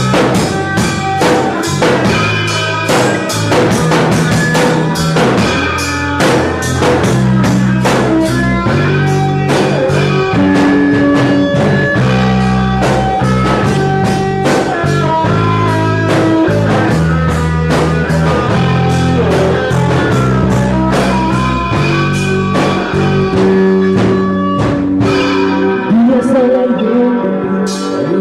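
A band playing a song: a drum kit keeps a steady beat under bass and a singing voice.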